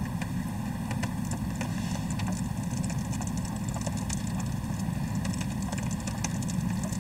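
Steady low rumble of a car idling, heard from inside the cabin, with scattered light taps of rain and hail on the car's roof and glass.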